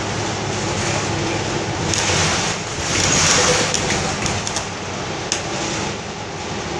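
Interior noise of a New Flyer XDE40 diesel-electric hybrid bus under way: a steady rush of road and drivetrain noise that grows louder for a moment about two to three seconds in, with a few short rattling clicks.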